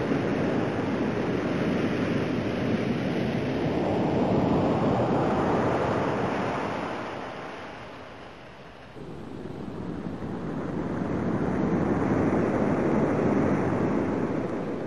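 Ocean surf: a rushing wash of waves that swells and ebbs, builds to about four seconds in, fades away by about eight seconds, then cuts back in abruptly and swells again.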